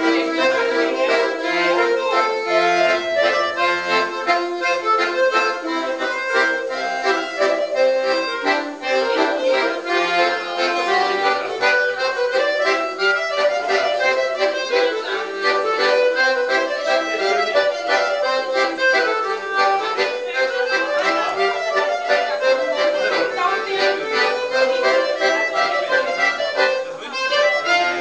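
Piano accordion playing a dance tune, a moving melody over short bass notes.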